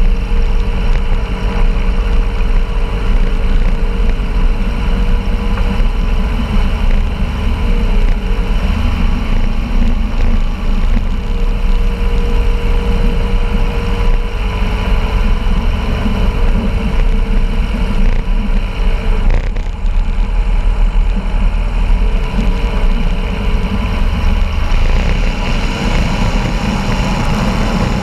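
Aerotrek A220 light-sport aircraft's piston engine and propeller running steadily while taxiing on a gravel strip. About 25 seconds in the sound broadens into a stronger rush as power comes up for the take-off roll.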